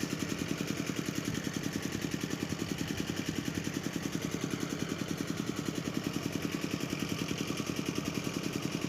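An engine idling steadily with a fast, even putter.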